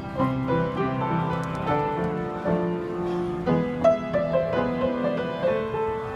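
Upright acoustic piano played by hand: a melody of single notes over sustained low chords, with a sharp, loud key strike about four seconds in.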